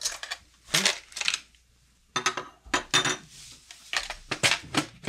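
Small metal sewing-machine needle plates clinking as they are handled: a string of irregular sharp clinks and knocks, a few with a brief metallic ring.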